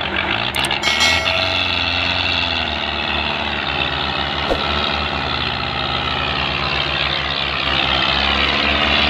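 Belarus tractor diesel engines running hard under heavy load, pulling a loaded sugarcane trolley, with a steady low pulsing throb. A few sharp clicks come about a second in.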